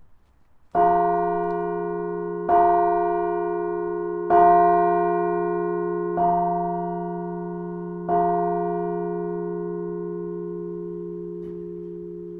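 Carillon bells played from the baton keyboard: the same deep bell tones struck five times, about two seconds apart, each stroke ringing on and dying away slowly. A faint click near the end.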